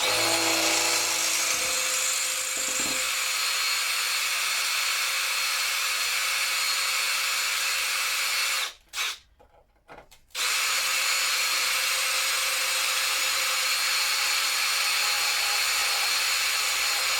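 Power drill drilling out a screw, running steadily for about nine seconds, stopping briefly, then running again for another seven or so.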